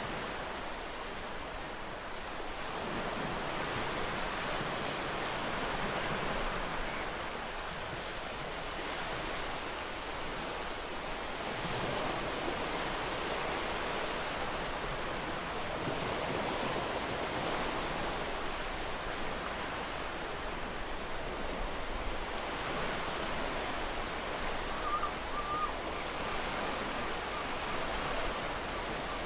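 Wind over open tidal sea with choppy waves lapping, a steady rushing that swells and eases every few seconds.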